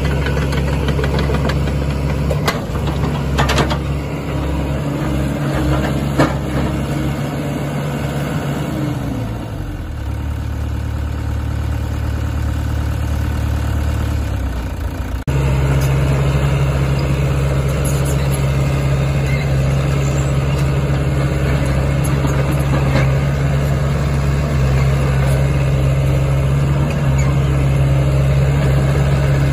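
Sany SY75C excavator's diesel engine running steadily, with a few sharp knocks in the first six seconds. The engine note slides lower about a third of the way in, then jumps suddenly back to a louder steady running note about halfway through.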